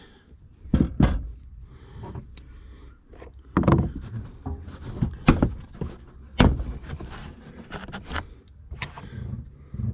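Hands and tools working on the plastic trim and fasteners in a car's boot: a string of irregular knocks and clicks over a low hum.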